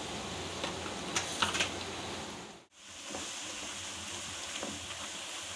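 Chopped onions sizzling steadily in hot mustard oil, with a few light clicks about a second in. The sound drops out briefly near the middle.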